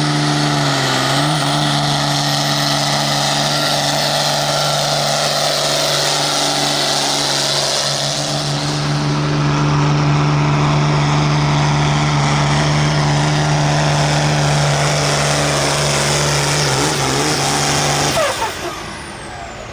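1998 White farm tractor's diesel engine running at full throttle under load, pulling the weight sled, with a slight rise in pitch about halfway through. Near the end the engine drops off sharply as the throttle comes off and the pull ends.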